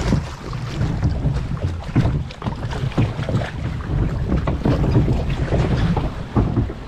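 Log-flume boat riding through its water channel: water rushing and sloshing with irregular knocks and splashes, and heavy wind buffeting the microphone.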